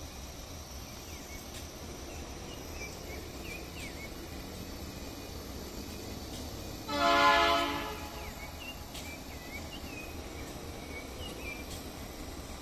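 Diesel freight locomotive's air horn sounding one short blast of about a second, about seven seconds in, over a low steady rumble from the approaching train.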